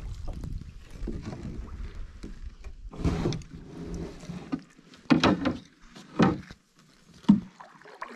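Wooden canoe being paddled up to a rocky shore: paddle strokes and water against the hull over a low rumble of camera handling, then three sharp knocks about five, six and seven seconds in as the hull bumps and grounds against the bank.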